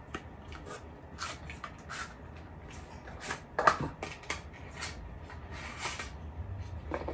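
Packaging being handled in a cardboard shipping box: scattered rustles, light taps and crinkles, with the sharpest knock about halfway through.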